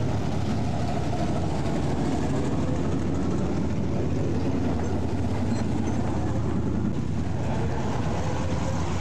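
Dirt late model race cars' V8 engines running at low speed as the cars roll past in a line, a steady loud rumble.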